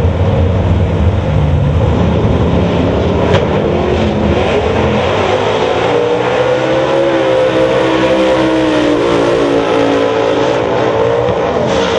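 Drag race cars' engines at high revs on the start line, then launching and accelerating hard down the strip, the engine pitch climbing in several steps as they shift up through the gears.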